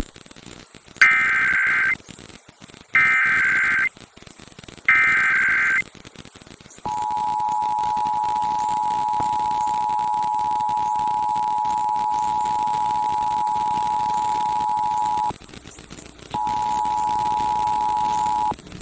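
Emergency Alert System test tones: three one-second bursts of the SAME header's warbling data tones, then the EAS two-tone attention signal of 853 and 960 Hz held steady for about eight seconds. It breaks for about a second and sounds again for about two seconds. A steady hiss runs underneath.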